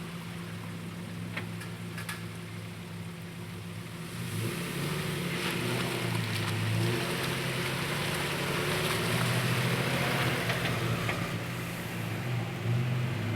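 Nissan 4x4's engine pulling through a muddy puddle, getting louder about four seconds in as it works harder, with a hiss of water and mud splashing.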